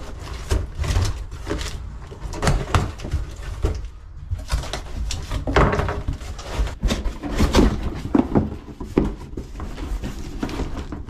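Cardboard shipping box being cut and pulled open by hand: irregular scraping, tearing and rustling of cardboard flaps with dull knocks.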